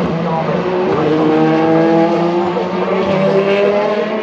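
Race car engines at high revs, the engine note climbing steadily as a car accelerates, with other engine notes overlapping beneath it.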